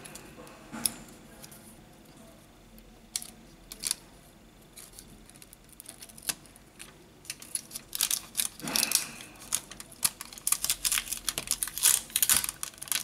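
Small sharp clicks and taps of fingers and parts on an opened smartphone as flex-cable connectors are pressed home and tape and film are handled. The clicks are sparse at first and come thick and fast in the last few seconds, with a short scraping rustle about two-thirds of the way in.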